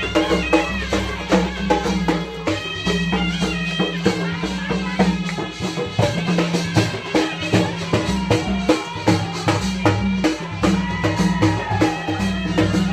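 Adivasi folk band playing: dhol and mandal drums beating a fast, steady rhythm under a wavering shehnai melody.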